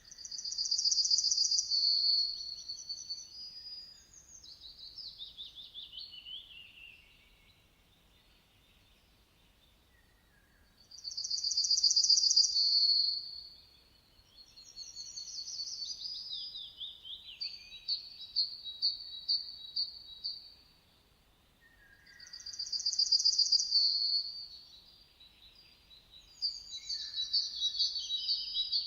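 Songbirds singing. Three loud bursts of high, rapid trilling come about ten seconds apart, each followed by notes that fall in pitch or repeat at about two or three a second. Fainter, lower calls come just before each burst.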